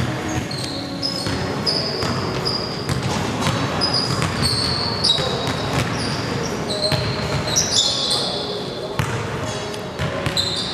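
Basketball game in a gym: a basketball bouncing on the hardwood floor, sneakers squeaking in many short high chirps, and players' voices, all echoing in the large hall.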